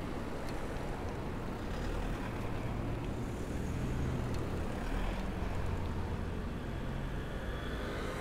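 Steady low rumble of road traffic, swelling slightly as a motor vehicle goes by about four to five seconds in, with a few faint ticks.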